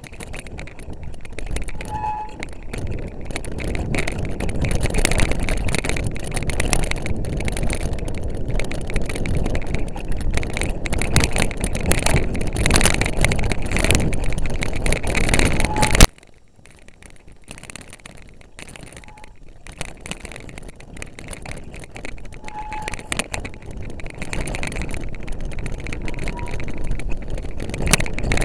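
Mountain bike riding over rough, boggy moorland: wind buffeting the camera microphone, with a steady clatter of rattles and knocks from the bike as it bumps over the ground. A sharp knock comes about halfway through, after which the sound drops much quieter before building back up.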